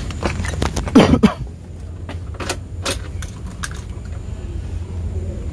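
Sharp clicks and knocks of a hand at the key and ignition switch of a 1995 Daihatsu Feroza and of climbing into the driver's seat, before the engine is cranked; a louder brief sound about a second in, over a steady low hum.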